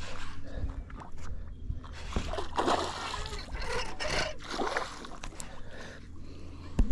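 Water splashing and sloshing at the surface beside the boat in irregular surges, with one sharp knock near the end.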